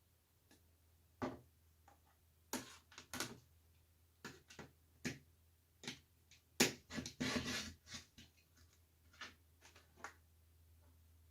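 Scattered, irregular taps, knocks and rustles of things being handled, about a dozen separate sounds, with a longer rustling, scraping stretch about seven seconds in.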